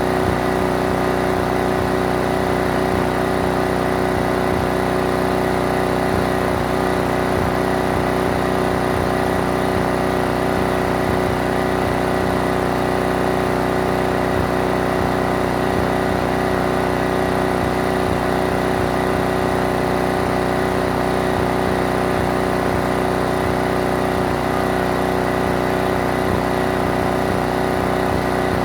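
Pressure washer's engine running at a steady, unchanging speed.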